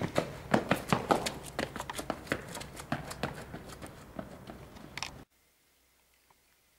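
Quick, irregular footsteps on pavement, several a second, with the camera jostled by the walking. The sound cuts off abruptly to near silence about five seconds in.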